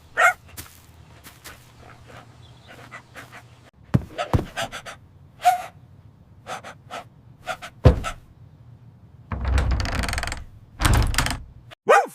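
Dog panting among a string of small knocks and clicks, with hard thuds about four and eight seconds in. Two longer noisy rumbles come near the end, then a single dog bark.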